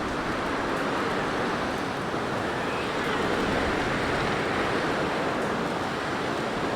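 Blizzard wind blowing: a steady rushing noise that swells and eases gently.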